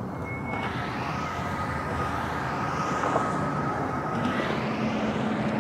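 Steady distant engine drone, slowly growing louder, with a faint thin whine over it.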